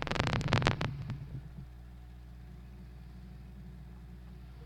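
A quick cluster of sharp clicks and knocks in the first second or so, then a steady low hum with a few fixed tones.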